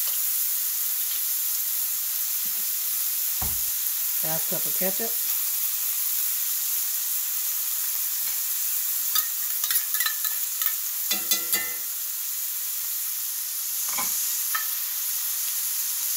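Ground beef sizzling steadily in a cast-iron skillet, with a cluster of light clinks and scrapes about two-thirds of the way through as ketchup is scraped from a metal measuring cup into the pan.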